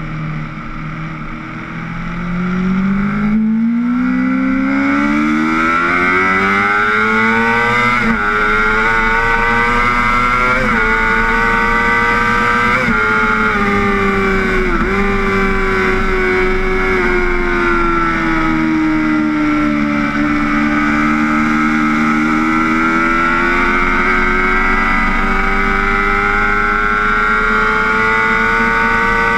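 Race motorcycle engine heard from on board the bike, pulling hard out of a slow corner and climbing through the gears with quick upshifts at about 8, 11 and 13 seconds in. The revs then sink slowly as it eases off, and build again near the end, over a steady rush of wind.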